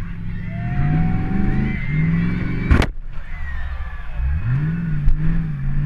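Demolition derby car's engine revving up and falling back again and again, with one loud crash just before halfway and a lighter knock near the end.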